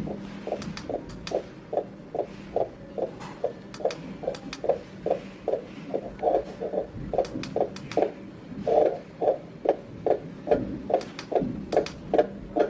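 Fetal Doppler heart rate monitor (FD280W) playing a heartbeat through its speaker: rapid, regular whooshing beats a little under three a second, over a steady low hum, with a few faint clicks.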